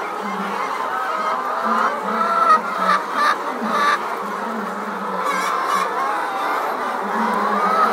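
A large flock of laying hens clucking and calling all at once in a continuous din, with a few louder calls standing out about two and a half to three and a half seconds in.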